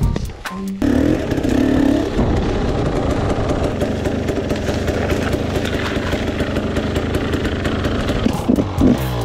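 Dirt bike engine coming in suddenly about a second in and revving up, then running steadily under way, with the revs rising and falling again near the end.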